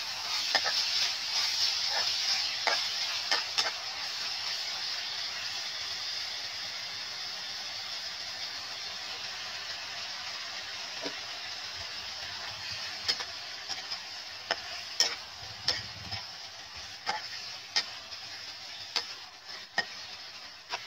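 Beef sizzling in a nonstick frying pan, stirred with a metal spatula that clicks and scrapes against the pan. The clicks stop in the middle while the sizzle goes on and grows slowly quieter, then come back about two-thirds of the way through as onion and chillies are stirred in.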